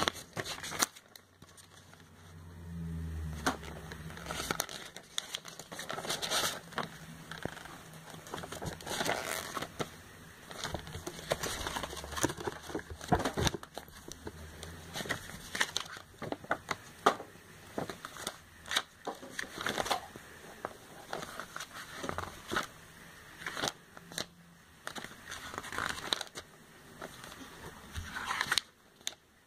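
Paper rustling and crinkling as hands handle a flyer and leaf through glossy catalogue pages, with many irregular short crackles and page flips.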